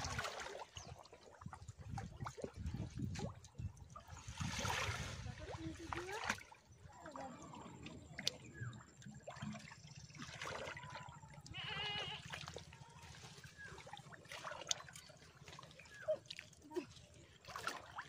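Shallow river water splashing and trickling as hands grope through mud and water-hyacinth roots for fish, in irregular short splashes.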